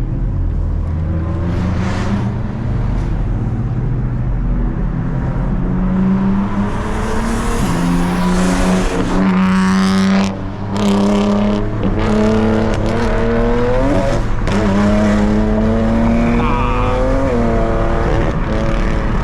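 Car engine at full throttle, accelerating hard through the gears: its pitch climbs steadily, then drops briefly at each of several quick upshifts before climbing again.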